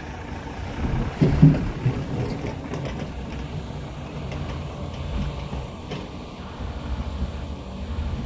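Heavy diesel engine running steadily, with a brief louder knock about a second in.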